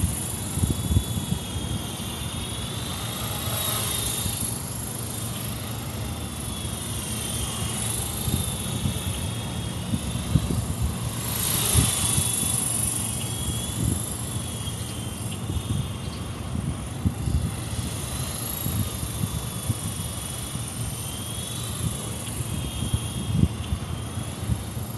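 Small electric fixed-pitch RC helicopter (Esky Honey Bee FP) in flight: a thin motor and rotor whine that wavers up and down in pitch as the throttle changes, swelling louder about twelve seconds in.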